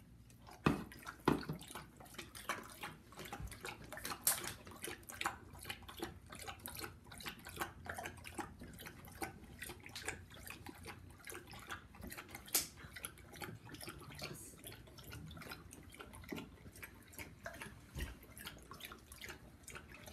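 Dog lapping water from a bowl: rapid, splashy laps, several a second, with louder slurps now and then.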